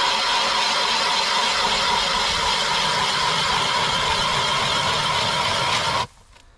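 Ice auger driven by a handheld cordless drill, boring down through lake ice: a steady whirring grind with a constant whine that cuts off sharply about six seconds in.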